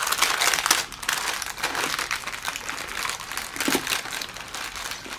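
Thin plastic packaging bags crinkling as they are handled, including a small baggie of diamond-painting drills.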